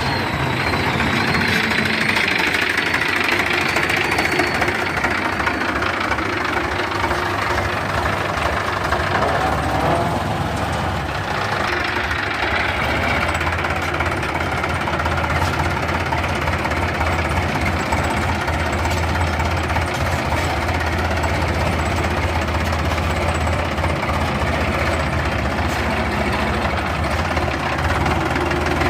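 Sonalika DI-750 tractor's diesel engine running steadily.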